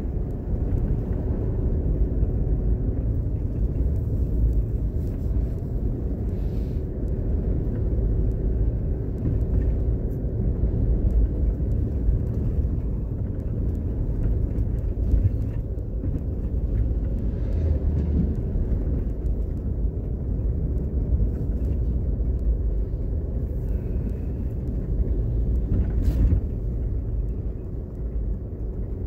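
Steady low rumble of a car's engine and tyres while driving along a paved street.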